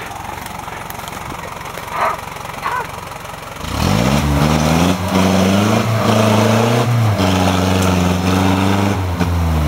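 Toyota Land Cruiser BJ40's four-cylinder diesel engine running low, then revving up sharply about three and a half seconds in and held high under load as the 4x4 climbs a rocky slope, with two brief dips before it eases off near the end.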